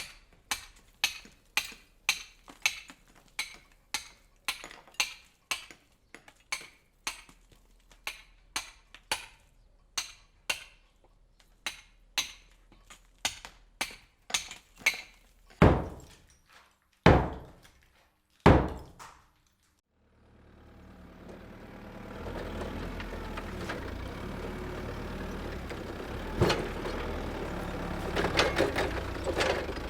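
Hammer blows struck at an even pace, about one and a half a second, followed by three louder, heavier blows. After a brief silence, a steady low machine rumble sets in, with a few clanks near the end.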